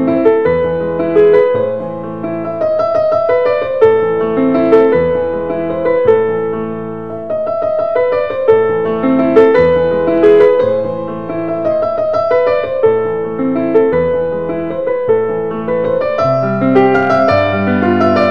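Background piano music: a melody of struck notes over low notes that change about once a second.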